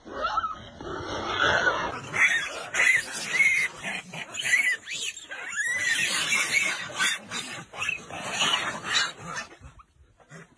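A troop of macaques calling: many short high cries that rise and fall in pitch, overlapping one another, dying away near the end.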